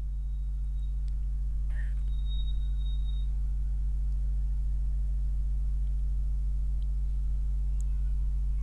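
Steady low electrical hum, like mains hum picked up on the recording, with a faint short high tone about two seconds in.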